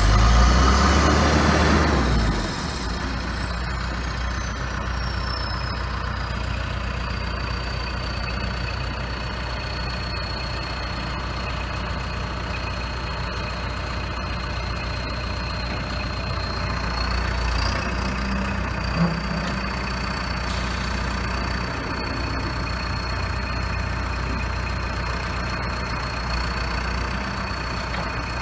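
A John Deere 310SJ backhoe's four-cylinder diesel engine is briefly run up in the first two seconds, then settles back to a steady idle. A high whine falls away over several seconds after the rev and then holds at one pitch.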